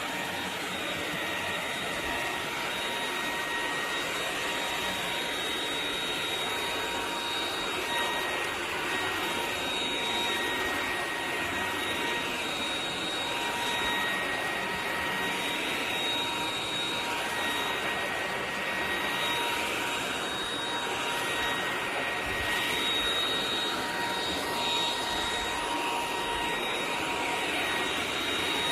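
Eureka RapidClean Pro cordless stick vacuum running steadily, a constant high motor whine over the rush of air.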